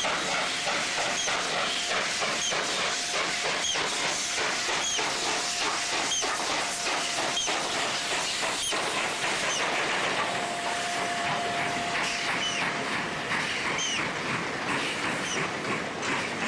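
Wankie Colliery 4-8-2 steam locomotive hissing steam as it passes, then a train of coal wagons rolling by, with wheels clacking over rail joints about twice a second. A thin wheel squeal rises about ten seconds in and lasts a couple of seconds.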